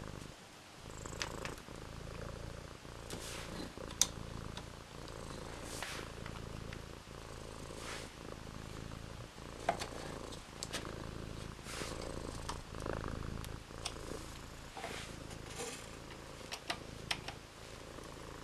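Scattered sharp clicks and taps of a hex key, screws and plastic suspension parts being fitted to a wooden scale-model truck chassis, over a steady low rumble.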